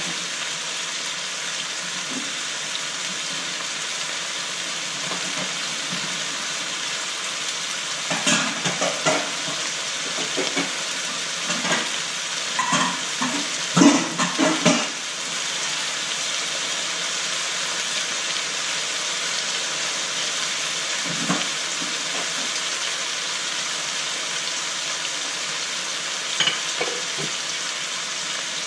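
Raw chicken pieces sizzling steadily as they fry in a wok. A cluster of clattering knocks comes about a third of the way in, with a couple of single knocks later.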